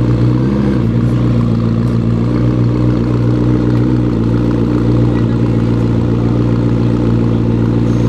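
McLaren P1's twin-turbo V8 idling steadily, with a brief rise and fall in revs about half a second in.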